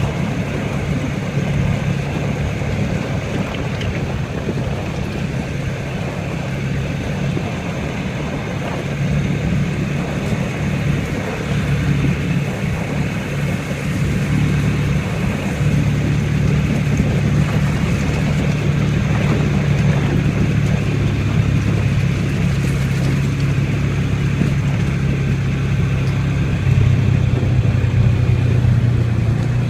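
ATV engine running at a steady pitch while riding, getting a little louder from about halfway through.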